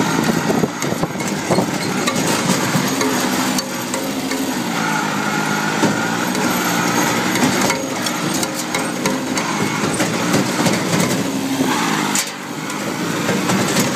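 Kubota B6200D compact tractor's diesel engine running under load. Its pitch dips and recovers as it pulls, and the tractor rattles and knocks throughout.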